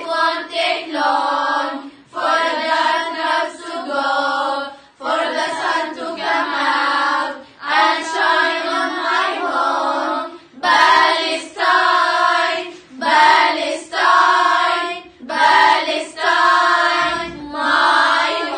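A group of teenage girls singing together in unison, with no instruments, in short phrases of a second or two broken by quick breaths; the phrases grow louder about halfway through.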